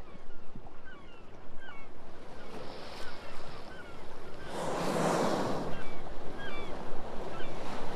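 Sea noise with wind, and about halfway through a humpback whale's blow: one loud breathy whoosh lasting about a second and a half as it surfaces and exhales. Faint short chirping calls come and go throughout.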